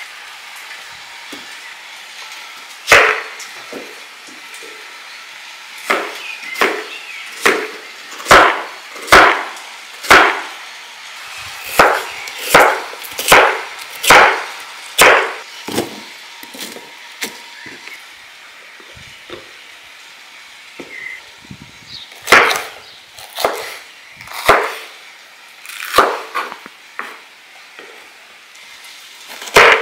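Kitchen knife slicing an onion, then green peppers, on a wooden cutting board: sharp, irregular knocks of the blade striking the board, in runs of several with short pauses between.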